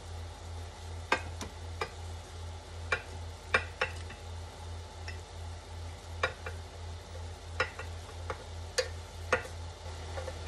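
Pieces of fried eggplant being set into a glass dish: a dozen or so light, irregular clicks and taps against the glass and container, over a steady low hum and a faint sizzle from the simmering pan.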